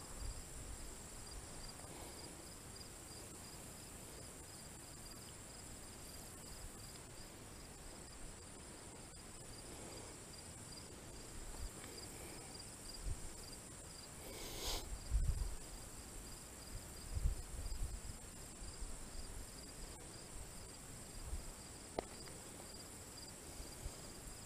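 Steady outdoor chorus of insects such as crickets: a continuous high buzz with a faster run of evenly repeated chirps beneath it. A few soft low thumps come through, the biggest about fifteen seconds in, with a brief sharp click among them.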